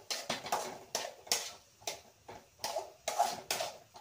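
A spoon scraping and knocking against a kadai as thick mashed-potato samosa filling is stirred: repeated quick, sharp scrapes, about two a second.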